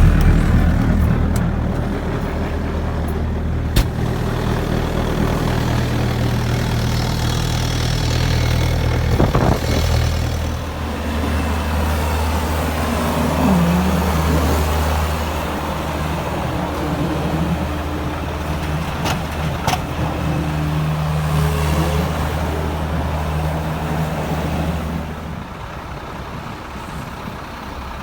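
Heavy diesel engine of snow-hauling equipment running steadily, with a few short knocks on top. Its note shifts about ten seconds in and drops lower near the end.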